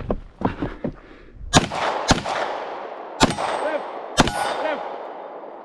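Four pistol shots over about two and a half seconds, each with a long echo, and steel targets ringing after the later shots as they are hit.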